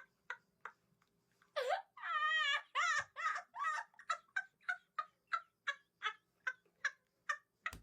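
A domestic fowl call starts about a second and a half in: a rising note, then a wavering, warbling call. It is followed by a run of short repeated notes, about three a second, that grow steadily fainter.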